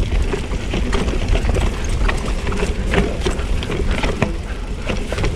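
Mountain bike rattling and clattering over rough trail ground on a descent, with many irregular knocks and clicks over a steady low rumble of wind on the microphone.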